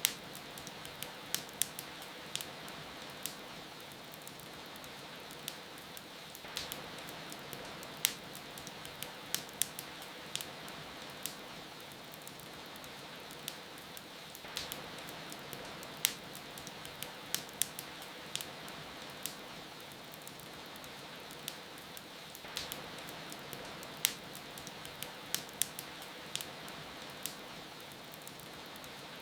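Steady rain hiss under a wood fire crackling: sharp, irregular pops, often several close together. The same run of pops repeats about every eight seconds, as in a loop.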